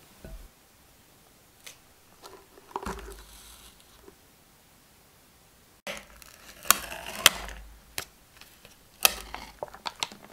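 Handling a plastic tub of mini Oreos: scattered rustles and light taps on the packaging, then the foil seal torn back with a crackle and sharp clicks about six seconds in. A few more clicks and rustles follow near the end.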